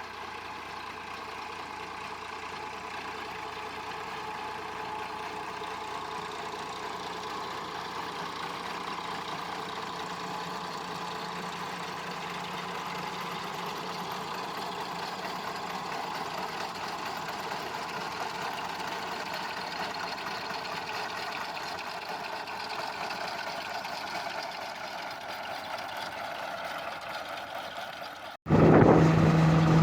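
Diesel tractor engine running steadily. Near the end it cuts abruptly to a much louder, closer engine sound with a steady low hum.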